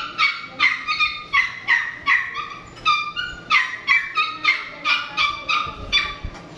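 Small dog yapping over and over, short high-pitched yips about two to three a second, some sliding down in pitch like whines.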